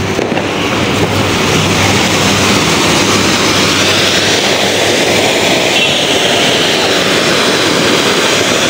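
Anar (flowerpot fountain firework) spraying sparks with a loud, steady hiss.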